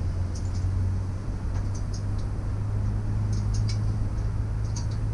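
A steady low hum, with light small clicks and taps scattered over it.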